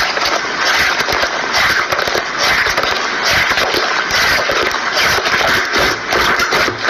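Slime being squeezed and worked by hand: a steady, dense crackling made of many small pops and clicks.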